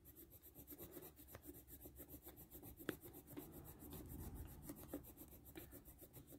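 Faint scratchy rubbing of a colouring tip on paper, shaded in quick back-and-forth strokes, with a few light ticks.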